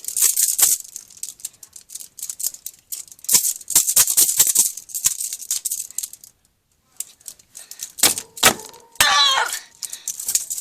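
Metal handcuffs rattling and clanking in quick, irregular runs as the cuffed wrists are shaken and banged to try to get them off, with a short pause about two-thirds of the way through.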